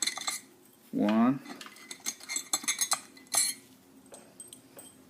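Scattered small metal clicks and clinks as screws are taken out of an air compressor's motor housing, with tool and parts tapping on metal; the loudest clink comes about three and a half seconds in.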